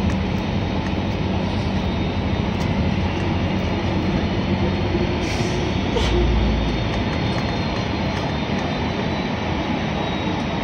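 Steady engine and road noise heard from inside a moving vehicle, with a brief deeper rumble about six seconds in.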